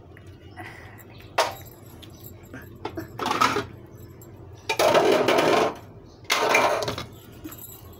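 Eggs being cracked and separated over a bowl: a sharp tap about a second and a half in, then three louder, noisy stretches of shell and egg handling, each under a second.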